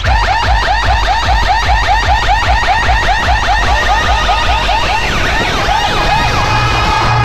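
Large DJ sound system blasting a siren-like electronic effect: a rapid rising chirp repeated several times a second over a heavy bass, turning into slower up-and-down sweeps near the end.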